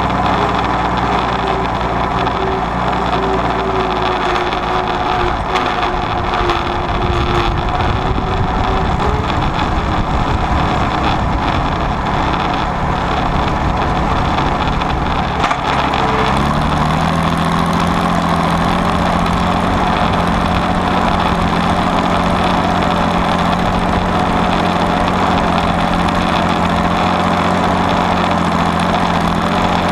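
Allis-Chalmers WD45 diesel tractor engine running steadily under the seat. About halfway through there is a click and the engine note changes, then holds steady as the rollover plow goes into the ground and the tractor pulls it through the soil.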